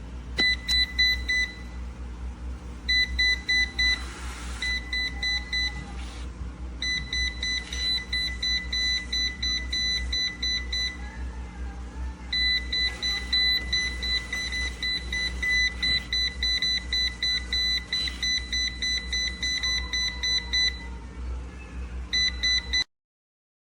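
Fast, high electronic beeping in long runs with a few short breaks, over the steady low hum of a robot vacuum's motor.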